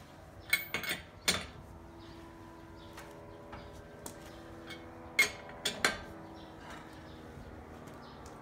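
Sharp metallic clinks and clanks of a lug wrench against the lug nuts and steel wheel while the nuts are retightened. They come in two clusters, one about half a second in and another around five seconds in.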